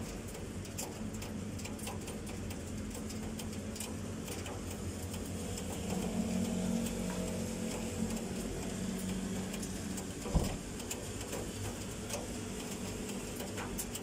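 Typhoon rain at night: scattered drops tick and tap close by over a steady low hum. A low droning tone swells between about 6 and 9 seconds in, and a single sharp knock comes about 10 seconds in.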